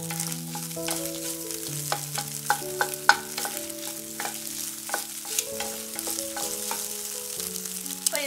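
Wooden spatula scraping and tapping against a non-stick pan as scrambled eggs are stirred and fried, with a light sizzle; the ticks come irregularly, several a second. Soft held notes of background music run underneath.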